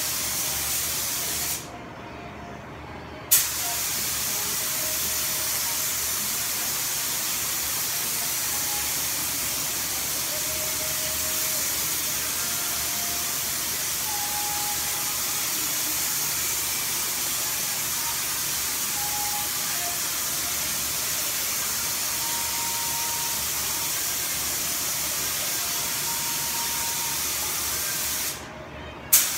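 Compressed-air paint spray gun hissing steadily as paint is sprayed. The trigger is let go for about a second and a half near the start and again briefly near the end, and the hiss comes back with a sharp burst each time.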